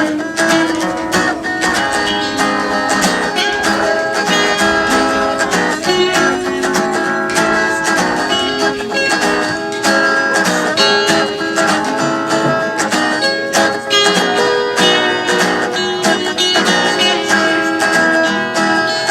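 Acoustic guitar played without singing, with quick picked notes and strums following one another in a steady stream.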